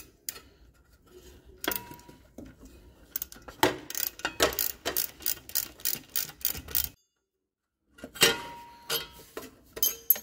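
Socket ratchet clicking in quick runs as a bolt on the tractor's front engine mount is turned out, with a few scattered metal clinks from the tools. The clicking is steadiest just before the middle, at about three or four a second, then the sound drops out completely for about a second before a few more clicks.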